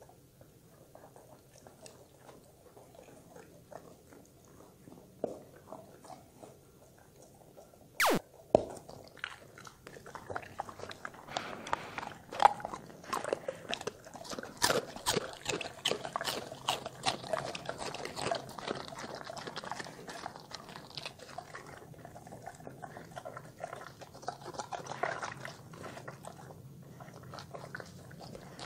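Dogs crunching and chewing pieces of raw vegetable: a dense run of crisp bites and crunches from about ten seconds in, after a quiet start broken by one short sharp noise about eight seconds in.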